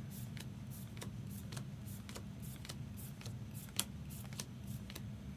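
Trading cards being flipped one after another through a stack, giving a run of soft, uneven clicks and snaps about three a second, with one sharper snap near the end, over a low steady hum.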